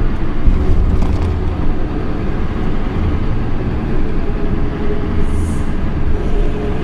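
Steady engine and road rumble inside the cabin of a car driving along a paved road.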